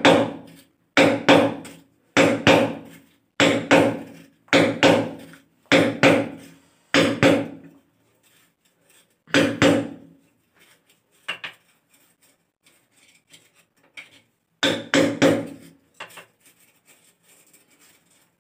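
Hammer striking a screwdriver held against a ceramic wall tile, punching a hole for a wall plug without a drill: steady blows about one a second, each a quick double knock with a short ring. After about eight seconds the blows thin out to a few lighter taps, with a last double knock about fifteen seconds in, as the hole is finished.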